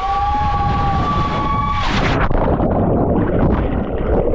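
A person's long, held high-pitched yell while dropping toward the water, cut off about two seconds in by a loud splash as they plunge in. Churning, rushing water noise follows.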